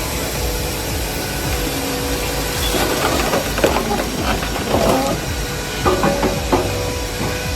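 Heavy machinery running: a loud, steady, noisy din with hiss, broken by a few short knocks.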